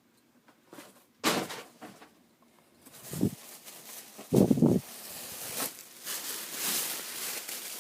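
Plastic packaging crinkling and rustling as a large plush toy is handled in its bag, starting about three seconds in and carrying on steadily, with a few short handling thumps.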